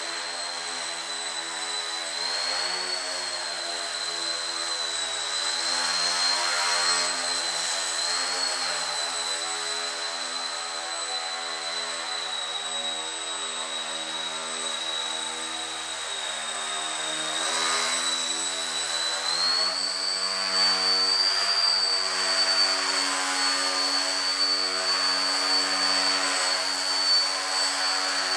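Electric motor and propeller of a Breeze Pro FP3 indoor foam RC plane running in flight, a steady high whine over a buzzing hum that wavers with throttle. About two-thirds of the way through, the whine steps up in pitch and gets louder as the throttle is opened further.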